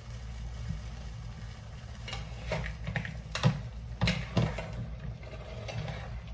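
Metal spoon clinking and scraping against a stainless steel pan while food is stirred, with a few sharper knocks in the second half, over a steady low hum.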